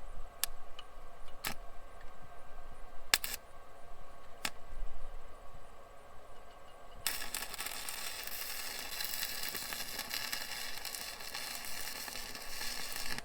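Stick welder arc: a few sharp clicks and short crackles as the rod is struck, then about seven seconds in a steady crackling hiss of the arc running, which cuts off near the end. The weld is filling a washer and nut over a twisted-off bolt stub so that the stub can be turned out.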